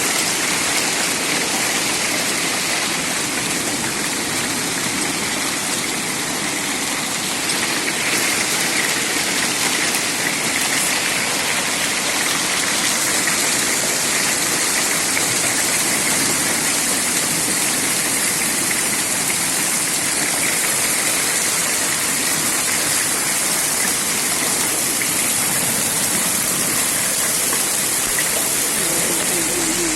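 Heavy rain falling steadily, a dense, even hiss of water that holds unchanged throughout.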